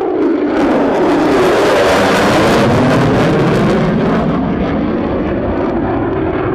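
Jet noise of a USAF F-35A Lightning II's single Pratt & Whitney F135 engine as the fighter makes a low pass overhead. It is loudest about two seconds in and eases off toward the end, with a whooshing tone that sweeps down and back up as the jet goes by.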